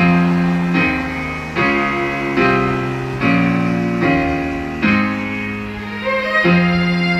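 Instrumental passage of a slow Mandarin pop ballad between sung lines: sustained chords that change about every second.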